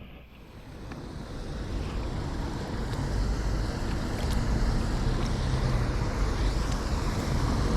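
Wind buffeting the microphone: a rushing noise with a heavy low rumble that builds over the first few seconds and then stays loud.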